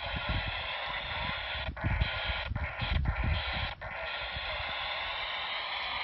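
Handheld Baofeng radio's speaker playing the SO-50 satellite's FM downlink: a steady hiss with faint, noisy voices of other stations in it. The hiss breaks off briefly four times between about two and four seconds in, and gusts of wind rumble on the microphone.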